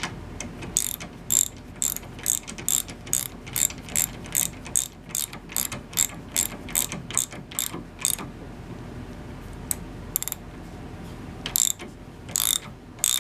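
Freshly cleaned and lubed S-K Wayne 45170 3/8-drive ratchet clicking steadily as it is worked, about three clicks a second. The clicking stops for about three seconds, then starts again near the end. The ratchet mechanism is working properly.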